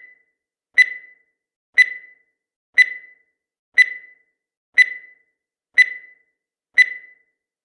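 Countdown timer sound effect: a short, sharp tick with a brief ringing tone, once every second, seven times, with silence between.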